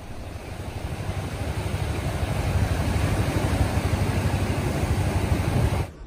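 Surf washing up a sand beach: a steady rush of breaking waves with a deep rumble. It builds over the first couple of seconds and cuts off suddenly near the end.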